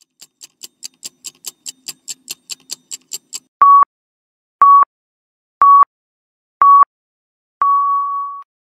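Countdown-timer sound effect: quick ticking, about five ticks a second. Then four short, loud beeps a second apart, and a final longer beep at the same pitch.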